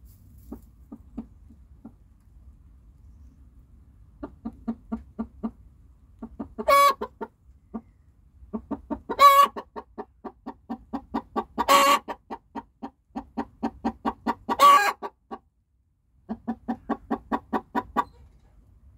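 Hen clucking in fast runs of short clucks, about five or six a second, broken four times by a loud, drawn-out squawk about every two and a half seconds.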